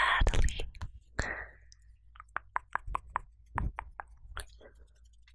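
Close-mic ASMR mouth sounds: a short burst of mouth noise at the start, then about two seconds in a quick, even run of about seven tongue clicks, roughly five a second, followed by a few scattered clicks.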